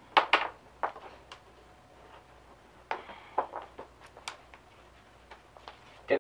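Scattered light clicks and taps of hands handling lashing cord and small parts on a toboggan: a quick pair near the start, a few single taps, then a cluster around three to four seconds in.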